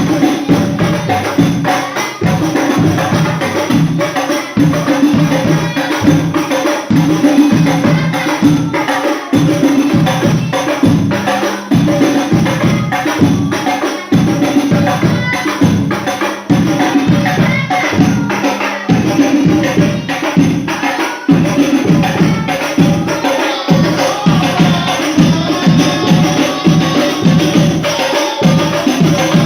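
Sholawat devotional music: rebana frame drums with jingles played together in a fast, steady rhythm, with a melody over them.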